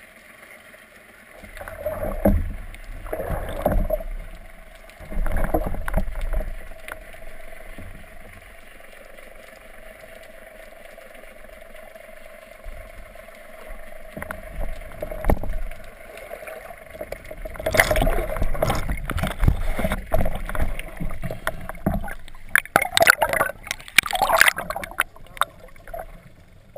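Water rushing and sloshing against an underwater camera housing in several loud surges as a spearfisher swims and handles his catch, over a steady faint hum.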